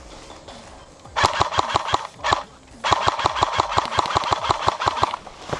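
Electric airsoft rifle firing on full auto: a short burst about a second in, then a longer burst of about two seconds, the gearbox whirring behind a rapid, even rattle of shots.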